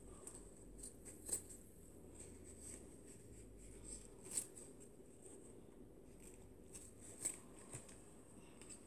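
Quiet handling of a thin plastic bag: a few sharp crinkles and clicks against near silence, the three loudest about three seconds apart.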